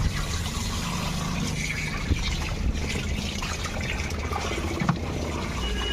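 Water trickling and splashing over a low steady hum, with a couple of short knocks.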